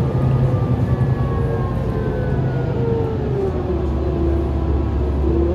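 MTA city bus heard from inside, its engine and drivetrain running with a steady rumble. A whine slowly falls in pitch as the bus slows and rises again near the end. The low engine note drops to a deeper pitch about halfway through.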